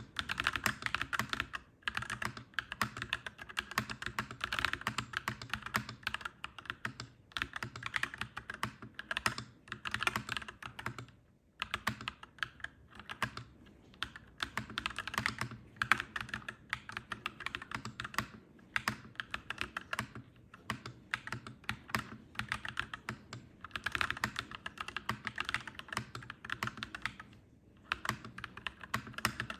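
Fast typing on a clacky mechanical keyboard: a dense run of key clacks, broken by a few short pauses.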